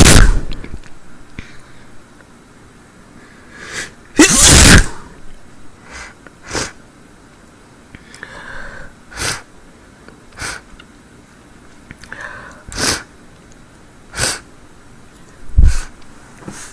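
A woman sneezing over and over: two loud, full sneezes, at the start and about four seconds in, then a string of shorter, sharp sneezes every second or two, some with a brief breathy wind-up just before.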